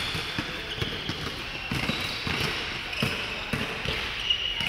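Basketball bouncing and players' feet thudding on an indoor court floor in irregular knocks, with short high squeaks of sneakers.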